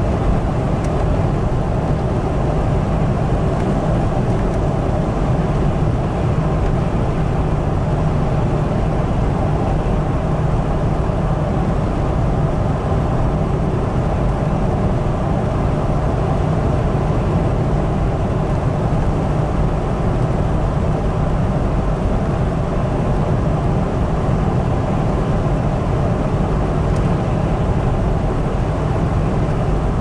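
Steady low drone of a car cruising at highway speed, heard from inside the cabin: engine and tyre road noise with no changes.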